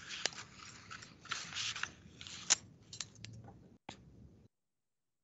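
Rustling and clicking handling noises picked up by a participant's open microphone on a video call, with one sharp click the loudest about two and a half seconds in; the sound cuts off abruptly to dead silence near the end as the call's audio gates out.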